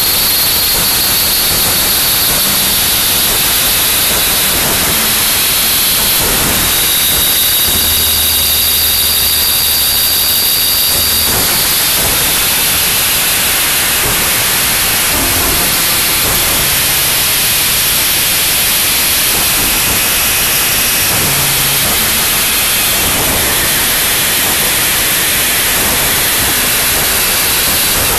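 Noise music: a dense, loud, unchanging wall of static hiss. A low hum and a high steady tone surface about eight seconds in and drop out about three seconds later.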